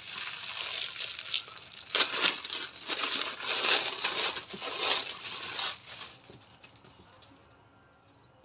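Clear plastic packaging bag crinkling and rustling as hands open it and pull out a folded cotton T-shirt. The rustling is loudest in the middle and stops about six seconds in.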